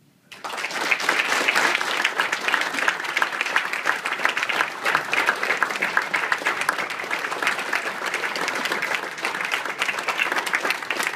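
A large audience applauding, the clapping breaking out suddenly just after the start and holding steady and dense.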